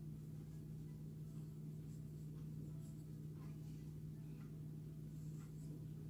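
Faint soft scratching and rustling of cotton yarn being pulled through stitches with a steel crochet hook, a few light strokes scattered over a steady low hum.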